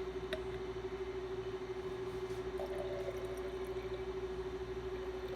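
A steady single-pitched hum, with a faint click just after the start and a brief faint tone about two and a half seconds in.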